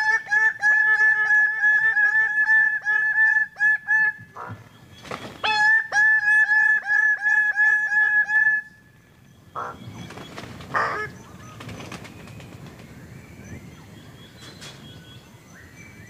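Male greater birds of paradise calling at their display tree: a fast run of loud, nasal, honking notes, several a second, with a short break about four seconds in. The calling stops about eight and a half seconds in, leaving a few faint knocks and rustles. The calls mark males arriving at the lek at first light.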